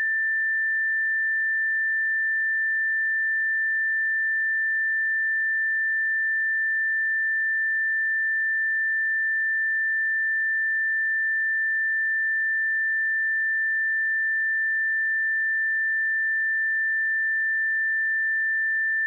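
A pure 1777 Hz sine-wave test tone, held steady at one pitch and level.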